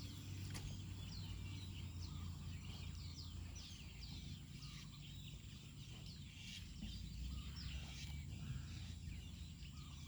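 Birds chirping repeatedly: many short, quick, falling calls, over a steady low rumble.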